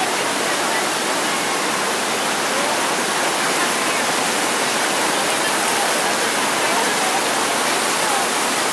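Shallow, fast stream rushing and splashing over boulders and small cascades: a steady, full rush of water.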